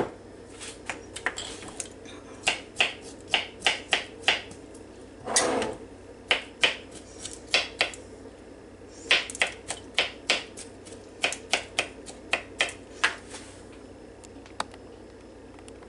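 Kitchen knife chopping sweet pickle on a plastic cutting board: sharp taps in quick, irregular runs with short pauses between. One longer, duller sound comes about five and a half seconds in.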